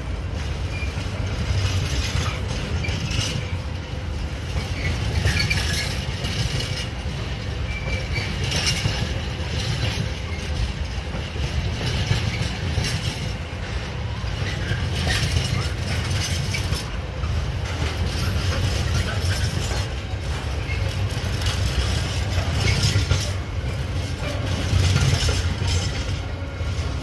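Long freight train's wagons rolling past with a steady heavy rumble, and repeated irregular clanks as the wheels run over the rail joints.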